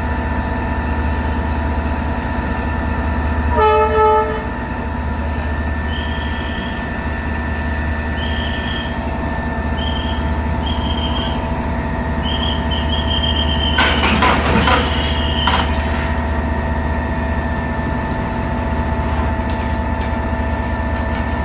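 Toy train running, with a steady electric motor hum. About four seconds in it sounds a short horn, then a run of short high beeps follows, with a brief clatter around the middle.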